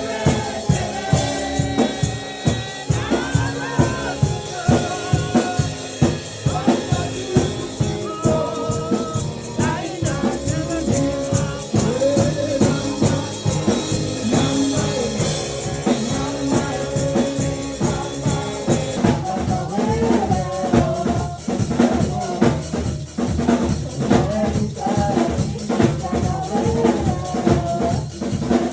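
Music with singing over a steady drum beat and rattling percussion, the percussion growing denser about two-thirds of the way through.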